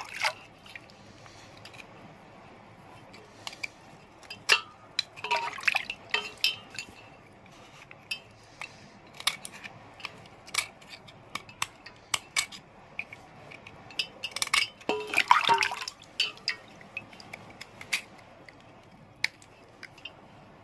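Small knife scraping a thin, crunchy surface layer off a wet block of stone held over a steel bowl of water, in short sharp scrapes and clicks, with water dripping. There are two longer, denser bursts of scraping and splashing, about five and about fifteen seconds in.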